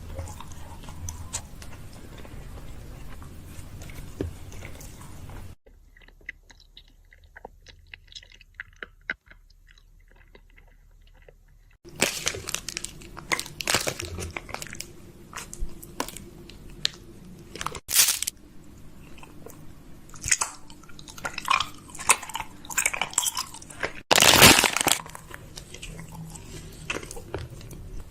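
Close-miked crunchy chewing and mouth sounds: a run of sharp crackles and clicks. There is a quieter stretch of faint clicks in the middle, then louder crunching with one loud burst near the end.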